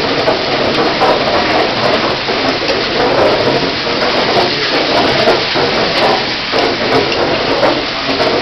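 Water rushing steadily, a loud, even noise with no break.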